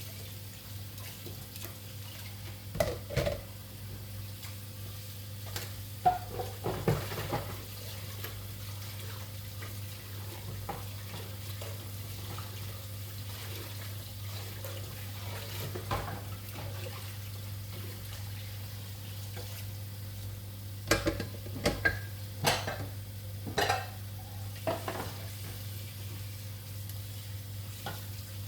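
Dishes and cutlery clinking and knocking now and then, with a busier cluster of clatter about three-quarters of the way through, over a steady low hum.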